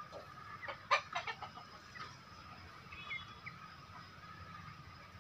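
Indonesian native chickens (ayam kampung) clucking: a cluster of short, sharp calls in the first second and a half, loudest about a second in, then a few fainter calls.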